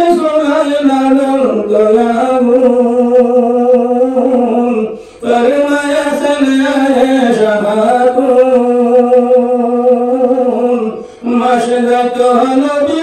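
A man singing a Bengali Islamic ghazal unaccompanied, in long drawn-out phrases whose notes bend and waver, pausing briefly for breath about five seconds in and again near the end.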